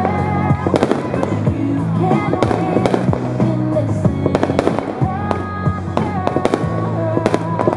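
Fireworks bursting in a rapid series of sharp bangs and crackles, with music playing alongside.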